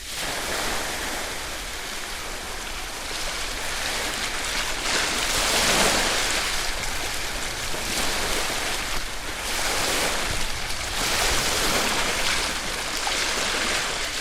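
Sea surf: waves breaking and washing up on a beach, the rush swelling and easing every few seconds.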